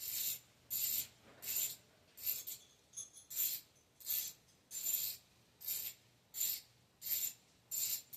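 Ratchet wrench clicking in short rasping bursts, about every 0.7 seconds, as it is swung back and forth turning a fairing bracket bolt.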